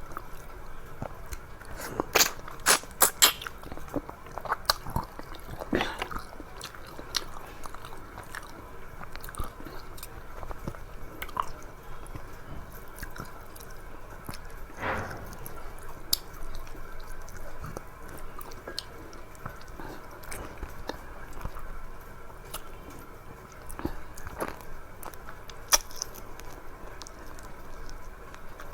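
A person chewing and biting food close to the microphone, with a quick cluster of loud crunchy clicks about two to three seconds in and softer chewing and smacking through the rest.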